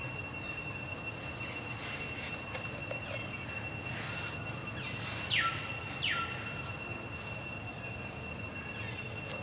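Insects drone steadily at a high pitch over a low background hum. A little past the middle come two short high calls about a second apart, each falling sharply in pitch.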